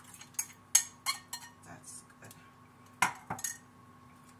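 Metal spoon clinking and scraping against a glass jar as a thick mix is scraped out into a plastic tub: a string of sharp clinks in the first second and a half, the loudest among them, and another quick cluster about three seconds in.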